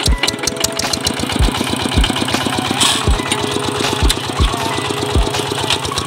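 Single-cylinder diesel engine of a two-wheel walking tractor running at idle with a rapid, even chug of about ten beats a second, broken by heavier low thumps every second or so.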